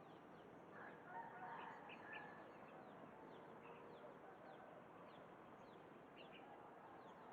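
Faint bird calls: many short, high chirps repeated throughout, with a lower, slightly louder call from about one to two seconds in.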